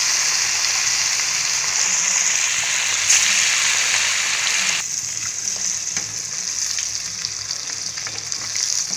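Sardines deep-frying in hot oil in a kadai, a steady sizzle that turns quieter about five seconds in. A few light clicks come near the end as a slotted metal ladle is stirred through the oil.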